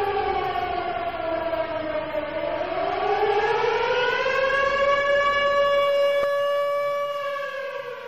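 A civil defence siren on a house roof wailing. Its pitch sinks, swings back up about halfway through, holds steady, and starts to die away near the end. This rising and falling howl is the tone used to warn the population, as in a disaster alarm, rather than the steady fire-brigade call-out.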